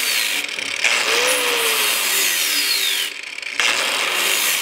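Cordless angle grinder with a flap disc grinding on a metal oil pan. It runs in bursts: a brief let-off about half a second in, then a longer run that winds down with a falling whine about three seconds in before the grinder is started again.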